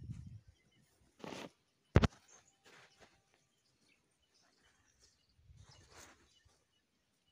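Hands pressing and scraping dry, clumpy soil around a transplanted lettuce seedling: short rustles and crumbling of dirt clods, with a low handling rumble at the start and one sharp knock about two seconds in.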